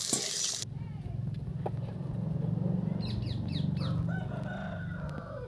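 A rooster crowing once, a held call that falls away at the end, after a few quick bird chirps. At the very start a loud sizzle from the wok cuts off abruptly.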